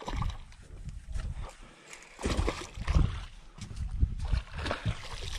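A hooked black crappie thrashing and splashing at the water's surface as it is reeled in beside the boat, in irregular bursts, loudest about halfway through.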